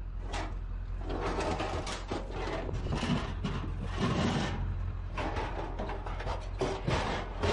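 Scrap metal being shifted and dragged into place: irregular scraping and rubbing with clunks and knocks, over a steady low hum.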